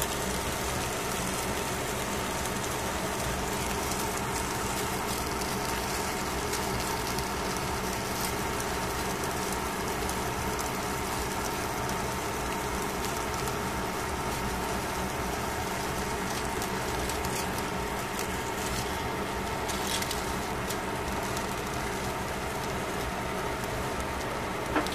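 Steady machine hum under the faint crackle and sizzle of fish fillets cooking on foil, with a light tap of tongs or spatula near the end.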